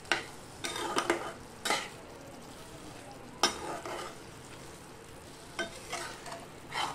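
A steel spoon stirring and scraping cooked spinach around a frying pan in short strokes every second or two, over a faint steady sizzle: the greens are frying dry now that their water has cooked off.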